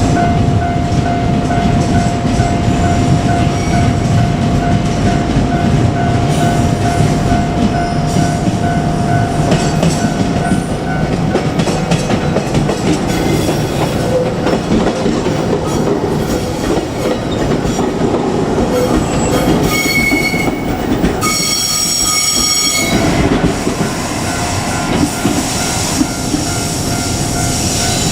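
A JR Kyushu 817 series electric multiple unit passing over a level crossing, its wheels rumbling and clattering on the rails while the crossing warning bell rings. About two-thirds of the way through there is a brief, shrill pitched tone.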